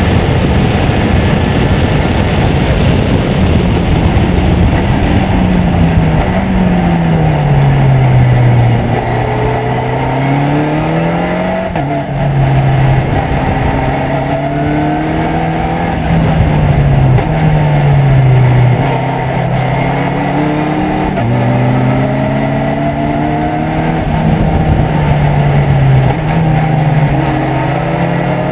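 Race car engine heard from on board an open-cockpit car at speed. The engine note climbs under acceleration and drops sharply at gear changes, then falls away under braking for corners, several times over, with a constant rush of noise underneath.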